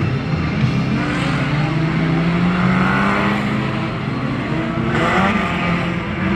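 Several stock car engines revving together as the cars race around a dirt track, their overlapping notes rising and falling, with one engine climbing sharply in pitch about five seconds in.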